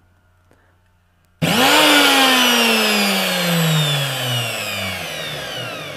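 DWT 180 SL angle grinder's electric motor, running with its gear head open and no gears, switched on for a moment about a second and a half in. Its whine jumps up sharply, then falls steadily in pitch and fades as the armature coasts down.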